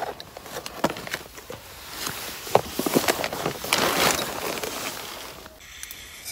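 Gear being handled inside a tent: irregular rustling, crinkling and sharp clicks, strongest around the middle. A steadier hiss takes over near the end.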